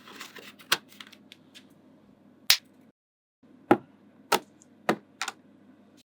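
Small magnetic balls clicking sharply as they snap together, about half a dozen crisp clicks at uneven intervals with fainter ticks between.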